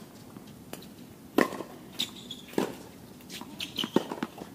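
Tennis balls being struck by rackets and bouncing on the court: several sharp pops spaced irregularly, the loudest about a second and a half in and a cluster near the end.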